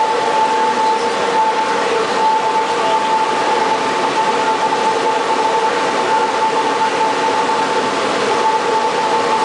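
Steady machine noise of a running 1959 RCA 5 kW tube transmitter, with a high steady tone and a fainter lower tone held over it, both dropping out briefly now and then.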